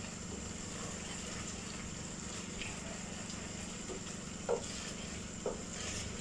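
A pot of thick vegetable sauce simmering on a gas stove, with faint bubbling over a steady low hum. Two short, light knocks sound past the middle, about a second apart.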